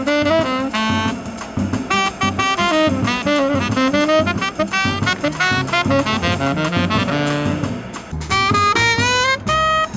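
Jazz music: a horn plays a melody of held notes over a moving bass line.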